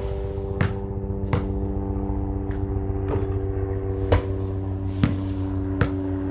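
A small engine running steadily with an even hum, with about six sharp thuds of a basketball bouncing on concrete at uneven intervals.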